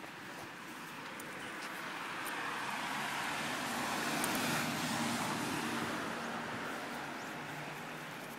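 A vehicle passing on the road: a rush of road and tyre noise that builds over the first few seconds, peaks around the middle and fades away.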